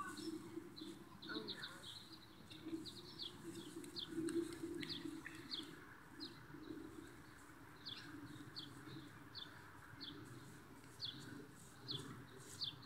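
Small songbirds chirping, many short falling high notes repeated in quick runs. Under them, faint rustling of plastic wrap as gloved hands press wet mortar onto a leaf.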